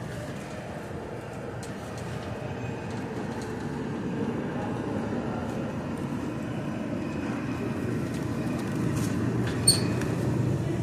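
Metal wire shopping cart rolling over a tiled store floor, its wheels and basket rattling steadily. A short high beep sounds near the end.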